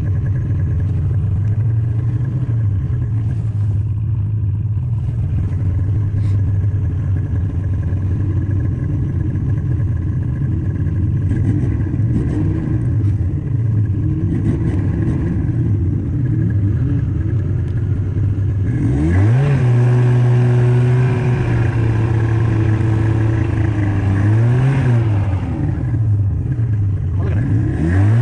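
Snowmobile engine running steadily. About two-thirds of the way in it revs up and holds at a higher, louder pitch, dips and rises briefly, and revs up again at the very end.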